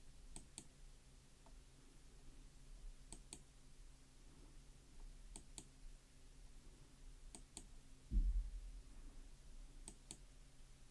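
Five pairs of faint computer clicks, each a quick double click, coming every two seconds or so as the document on screen is advanced, over a low steady hum. A dull low thump about eight seconds in.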